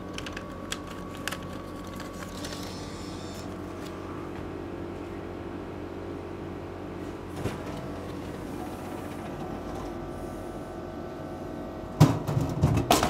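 Refrigerated vending machine humming steadily while a banknote is fed in, with a short whir a couple of seconds in as the note is taken. Near the end, a boxed frozen meal drops into the delivery bay with a loud thump and a brief clatter.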